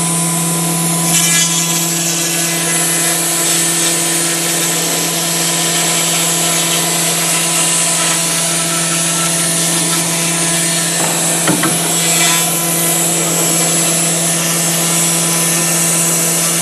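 4-axis CNC router spindle running at a steady speed with a constant hum, its long bit milling white polystyrene foam with a steady hiss. Brief louder rasps come about a second in and again about eleven seconds in.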